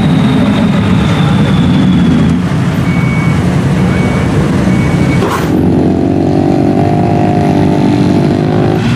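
Motor vehicle engines running loudly. A little past halfway the sound changes abruptly to a muffled, steadier engine drone with several held pitches.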